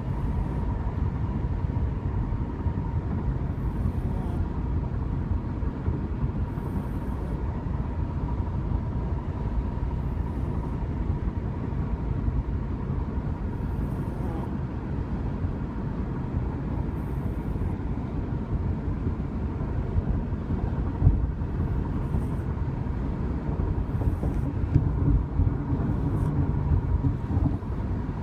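Steady road and engine noise inside a moving car's cabin, a low rumble with a faint steady whine above it.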